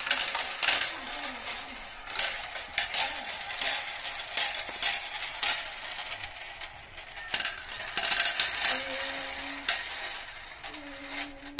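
Small marbles rolling down a marble run, with a steady rolling rattle and many sharp clicks as they knock against the track and each other.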